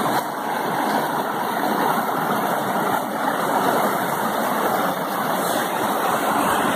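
Mountain stream rushing over a rocky cascade: a steady wash of white water.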